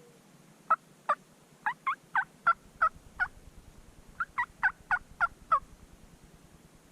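Turkey yelping: two series of sharp yelps, about three a second, the first of about eight notes and the second of about six after a short pause.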